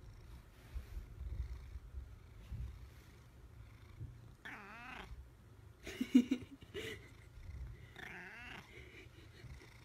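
Domestic cat purring with a low rumble, giving three short wavering meows; the middle one, about six seconds in, is the loudest.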